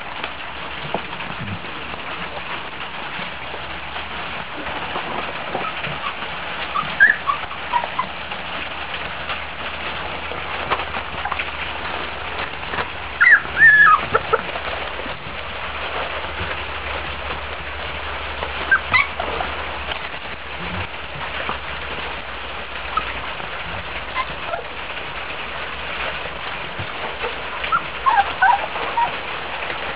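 Month-old Chesapeake Bay retriever puppies whimpering and squealing in short, high-pitched cries. The cries come in four separate spells, the loudest about halfway through, over a steady background hiss.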